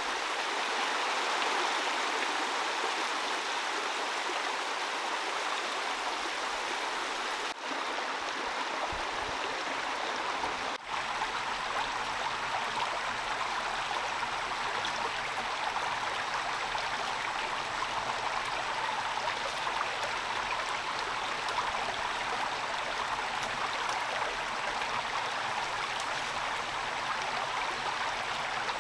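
Heavy rain falling in a steady rushing hiss, briefly dropping out twice.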